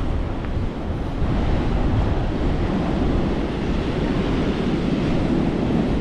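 Wind buffeting the microphone over the steady wash of ocean surf, getting a little louder about a second in.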